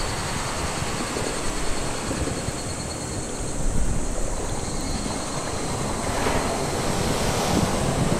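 Wind buffeting the microphone, with the steady wash of sea surf behind it.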